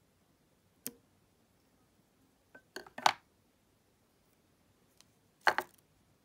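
Small fly-tying scissors snipping stray fibres of pink dubbing on a bead-head nymph held in a vise. There is one sharp snip about a second in, then two louder clusters of clicks and clatter, about three seconds in and again near the end.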